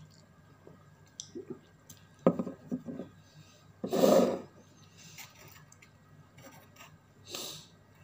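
Drinking glass knocking and clinking against the table and tableware as it is put down after a drink of Pepsi, several sharp knocks a little over two seconds in. A short, loud, rushing noise follows about four seconds in.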